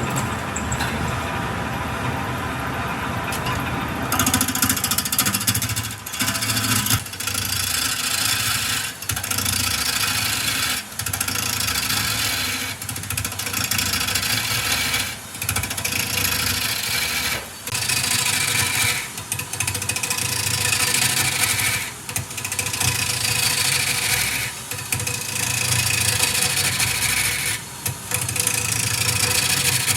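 Wood lathe running with a steady motor hum while a turning tool cuts the spinning wood, from about four seconds in, in repeated passes that break off briefly every one to two seconds.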